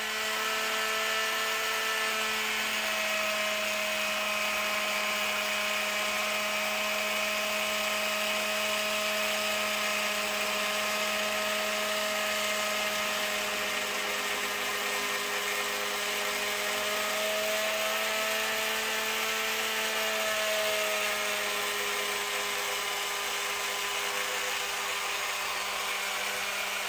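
Small battery-powered electric motor in a toy flapper paddle boat, spinning its magnet drive fast with a steady high whine whose pitch drifts slightly up and down.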